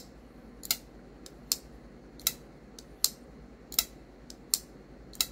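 Trivisa DOR-04BR button lock flipper knife on a ball-bearing pivot being flipped open and closed again and again: a sharp click about every three-quarters of a second as the blade snaps into lockup or shuts. The action has a nice detent and a very unique acoustic for a button lock.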